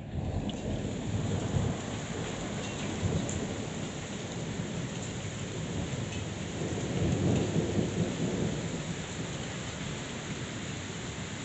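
Heavy rain pouring down in a thunderstorm, with a low rumble of thunder that swells about seven seconds in.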